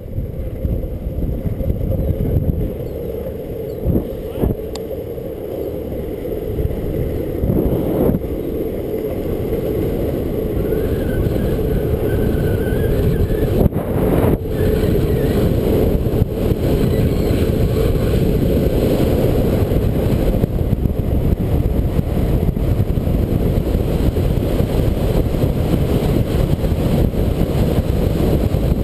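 Wind rushing over the camera microphone and the rumble of longboard wheels rolling on asphalt, building over the first several seconds as the board gathers speed downhill, then holding steady. A few sharp knocks in the first half.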